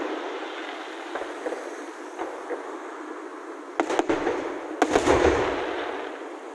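Aerial firework shells bursting: a few faint pops, then two loud bangs about four and five seconds in, each followed by a rumbling echo that fades away.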